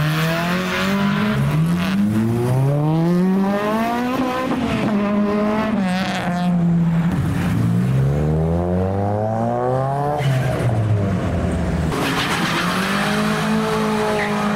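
Modified Japanese tuner cars pulling away one after another, engines revving up in repeated rising pulls as each car accelerates past.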